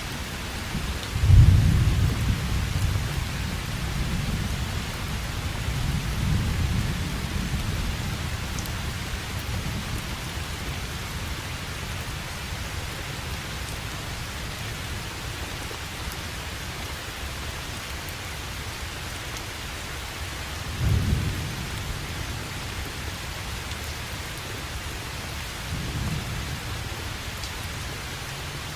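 Steady rain with thunder. A sharp, loud thunder rumble comes about a second in and fades over several seconds, with weaker rolls a few seconds later, another strong rumble about two-thirds of the way through and a fainter one near the end.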